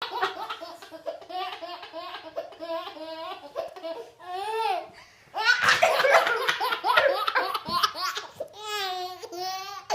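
Baby laughing in runs of quick, high-pitched laughs, with a short pause about halfway, then a louder stretch of laughter.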